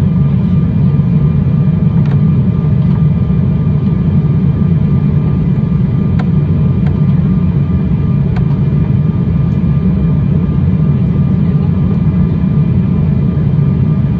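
Steady cabin noise inside an Embraer 195 airliner on descent: a low rumble of airflow and its two GE CF34 turbofan engines, with faint steady high-pitched tones above it.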